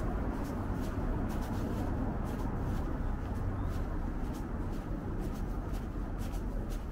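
Footsteps on a paved sidewalk, light crisp steps about every half second, over a steady low rumble of city background.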